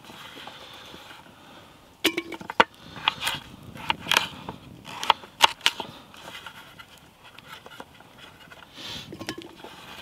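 Knife chopping a parsnip into chunks on a wooden chopping board: irregular sharp knocks of the blade through the root and onto the board, starting about two seconds in, with a pause before a few more near the end.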